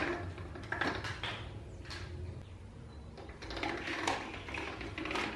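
Hand-cranked steel pasta machine working a sheet of dough through its rollers, with soft, irregular clicks and knocks from the crank and frame.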